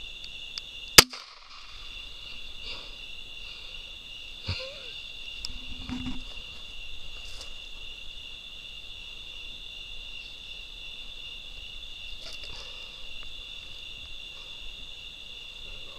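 A single handgun shot at point-blank range about a second in: a finishing shot into a wounded wild hog. A steady chorus of night insects runs under it.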